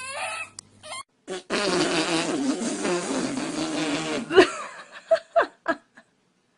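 A long fart lasting about three seconds, rough and wavering in pitch, followed by a few short, sharp vocal bursts.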